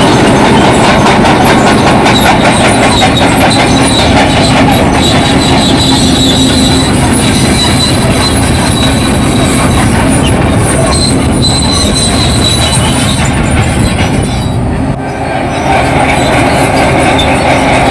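Bulldozer working, its engine running under load and its steel tracks clanking, with a thin high squeal from the tracks that comes and goes. The noise dips briefly about 15 seconds in.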